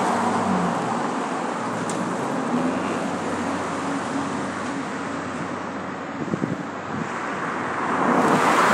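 Road traffic: cars passing on a multi-lane road, with a steady engine hum. One car goes by at the start and another swells and passes near the end.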